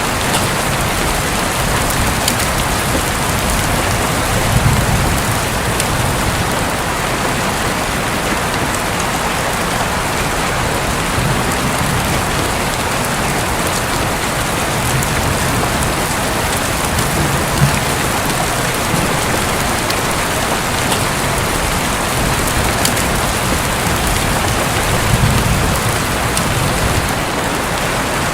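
Steady heavy rain on a roof, a dense hiss with scattered drop ticks. Low rumbles of thunder swell up about five seconds in, again in the middle and once more near the end.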